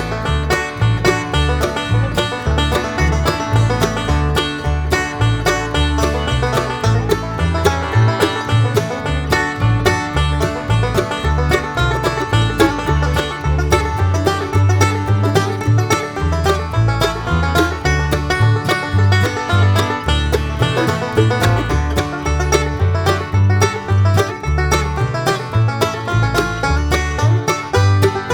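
Background music: fast bluegrass with rapid banjo picking over a steady bass.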